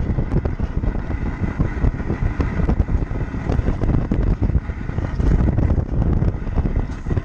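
Mountain coaster sled running down its rail track: a steady rumble and rattle from the wheels on the rails, with wind buffeting the microphone. A faint high whine comes in for a few seconds in the middle.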